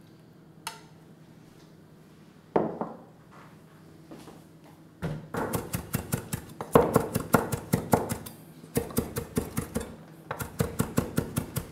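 Chef's knife chopping celery leaves on a wooden cutting board: a fast, even run of strokes, about four a second, starting about five seconds in with a short break near nine seconds. A single knock comes a few seconds earlier.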